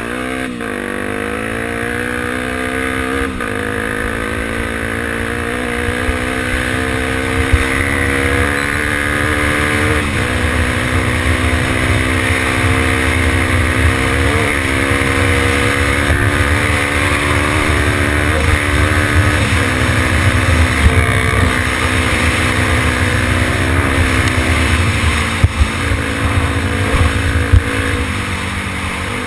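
Honda XR 250 Tornado's single-cylinder four-stroke engine running hard as the dirt bike accelerates. The engine note climbs and dips briefly a few times. Heavy wind rumble on the microphone runs underneath.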